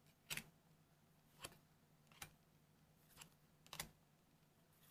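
Trading cards being handled one after another: about five faint, short clicks and flicks of card stock as cards are slid off the pile and swapped in the hand, over a faint steady low hum.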